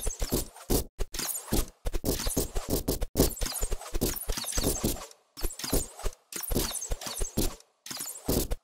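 Arrows striking archery targets in quick succession: a run of sharp knocks, several a second, broken by a few short silent gaps.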